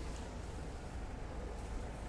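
Steady low rumble and hiss of outdoor city street ambience, with no distinct events standing out.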